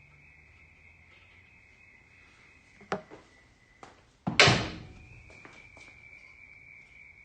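Metal parts being handled on a workbench during engine dismantling. There is a sharp knock about three seconds in, then a loud clunk with a short rattle a little after four seconds, then a few light clicks. A steady high insect chirring continues underneath.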